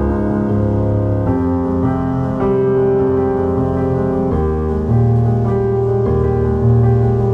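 Background music: a soft piano-led track of sustained chords that change every second or so over a steady bass.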